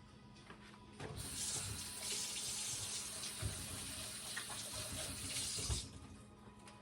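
Kitchen tap running into a sink for about five seconds, starting about a second in and shut off shortly before the end, with a few low knocks under the water; hands being washed after handling raw chicken.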